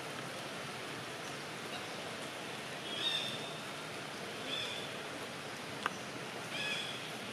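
Infant long-tailed macaque giving three short, high-pitched cries spread over the second half, the first the loudest, over a steady background hiss. A single sharp click comes near the end.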